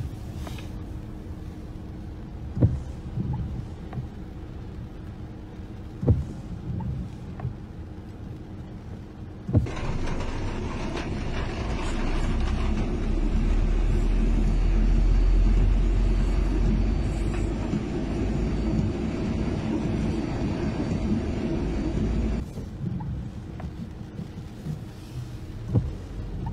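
A car drives slowly through a flooded street. There is low engine and road noise from the cabin, with a few sharp knocks. About ten seconds in, a louder rushing noise with a deep rumble starts suddenly, and it cuts off just as suddenly a few seconds before the end.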